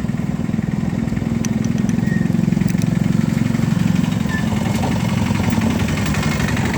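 A motorcycle engine idling steadily with a fast even beat, swelling a little in the middle.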